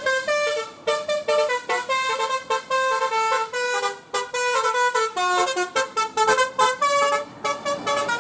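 Bus telolet horn, a musical multi-note horn, playing a fast tune of short notes that changes pitch several times a second, with brief pauses about a second in and near the middle.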